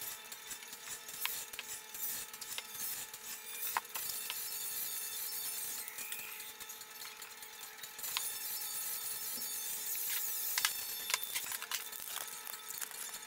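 Small handwork sounds of painter's tape being handled and trimmed with scissors: scattered clicks and rustles. Near the end comes a quick run of clicks, as a spray paint can is picked up and shaken so that its mixing ball rattles.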